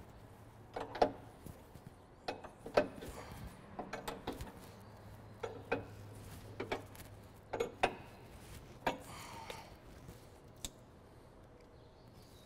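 Wrench working the nuts on the threaded take-up rods at the tail of a drag chain conveyor, tightening the loose chain: about a dozen irregular sharp metal clicks and clinks.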